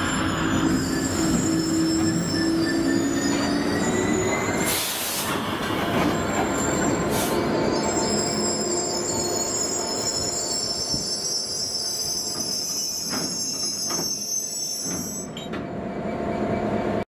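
Class 66 diesel locomotive's two-stroke V12 engine running as it passes close by, followed by loaded ballast hopper wagons rolling past. From about eight seconds in there is high-pitched wheel squealing.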